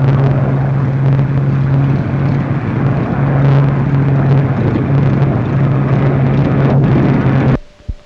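Spitfire fighter's piston aero engine droning steadily at a constant pitch. The sound cuts out for about half a second near the end.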